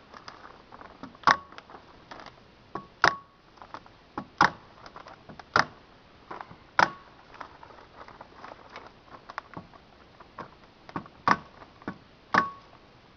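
Sharp clicks at irregular intervals, the loudest roughly one to one and a half seconds apart, several with a short metallic ring, as 6-mil plastic sheeting is tacked onto the greenhouse frame.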